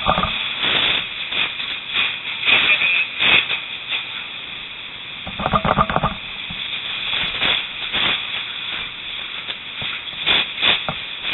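Hissing and crackling at a burning trailer, with irregular knocks, and a brief raised voice about halfway through.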